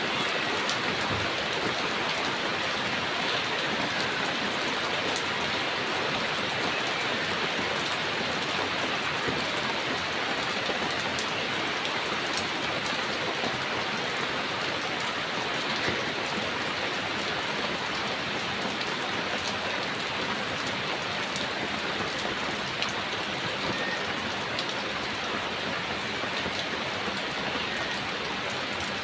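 Heavy rain falling steadily, a dense even hiss with scattered drop patters on surfaces.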